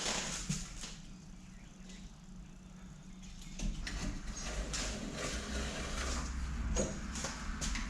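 Razor knife scraping and cutting through a bead of caulk around a school bus window frame: a series of short, irregular scratchy strokes, with a steady low rumble joining about three and a half seconds in.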